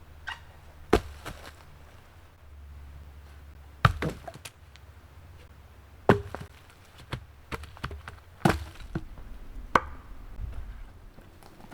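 Axe chopping wood: about six sharp, irregularly spaced strikes into wood, with lighter knocks in between.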